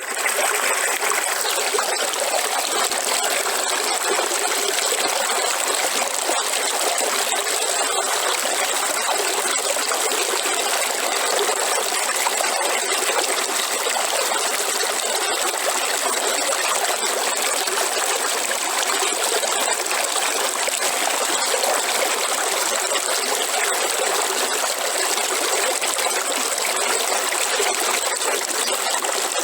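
A river's water flowing and babbling: a steady, even rush of running water that starts at once and holds without change.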